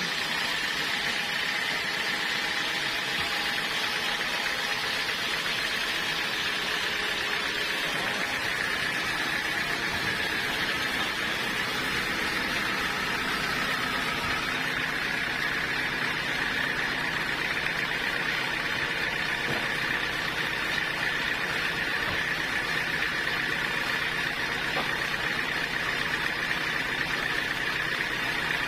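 Band sawmill running steadily: a continuous engine drone with a steady high whine on top.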